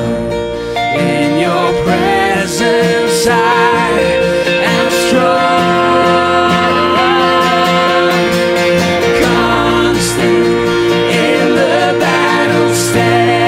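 Worship song played live: voices singing over strummed acoustic guitars and a Yamaha digital piano, at a steady level with held notes throughout.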